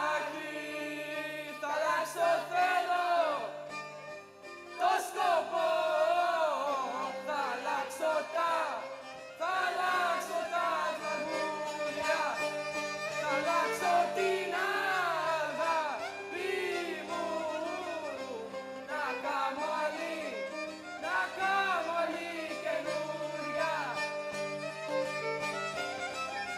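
Greek folk dance music, a violin playing a wavering, ornamented melody over steady held low notes.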